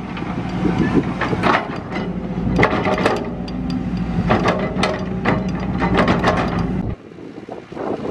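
Cat 312 hydraulic excavator's diesel engine running steadily under load, with repeated metal clanks and knocks as the bucket digs into the soil. The engine sound cuts off suddenly about seven seconds in.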